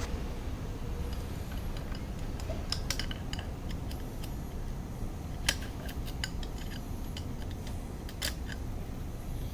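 Metal parts and hand tools clinking and clicking now and then during work on a Nissan Cube CVT, with three sharper metallic strikes over a steady low rumble.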